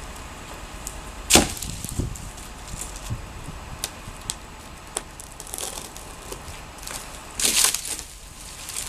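Oak wood cracking and knocking during tree removal: one loud sharp crack about a second and a half in, a thud just after, scattered lighter knocks, and a short rustling swish near the end.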